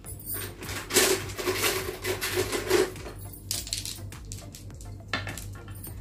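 Hands pressing and scraping potting soil in a steel plate: gritty rustling and scraping with light clinks against the metal, busiest in the first half.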